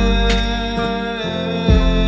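Calm R&B/soul-style background music: a sung melody over held bass notes and a light beat.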